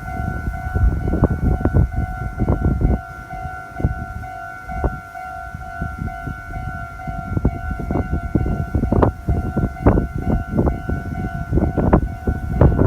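Japanese level-crossing warning bell ringing steadily on one high tone, while a Meitetsu train rumbles through the crossing with a run of sharp clacks from its wheels over the rails, easing off for a few seconds in the middle and picking up again.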